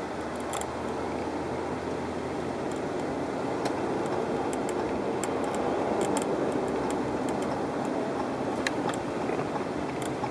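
Steady road and wind noise in a moving car's cabin, with scattered light clicks and ticks from around the sunroof track, the sunroof noise being chased.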